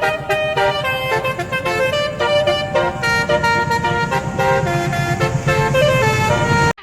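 Telolet multi-tone musical horn playing a quick melody of stepped notes over a low rumble, cutting off suddenly near the end.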